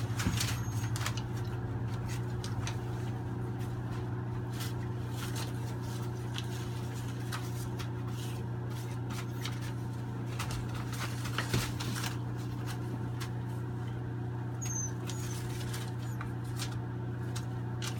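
Puppies padding and scratching about on loose newspaper, the paper rustling with scattered soft clicks, over a steady low electrical hum. A short high squeak comes about fifteen seconds in.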